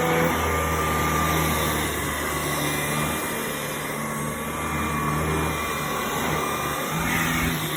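Xiaomi Mijia handheld dust mite vacuum running steadily over a sofa, a continuous motor whine over a low hum that swells and dips as the head is moved.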